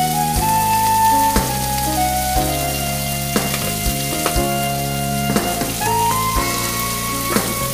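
Beef hamburger patties sizzling in a ridged grill pan, under background music with held notes and a beat about once a second.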